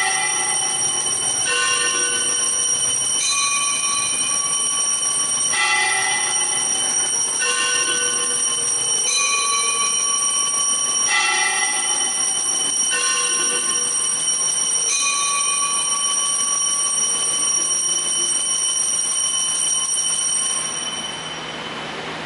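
Altar bells ringing for the elevation of the host at the consecration: a continuous high ringing with a bell struck again about every two seconds, each strike sounding several tones at once. The ringing stops about a second before the end.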